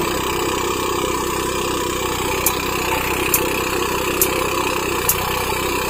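Small engine-driven rice thresher running steadily while rice stalks are fed into its threshing drum, with a few sharp ticks about once a second.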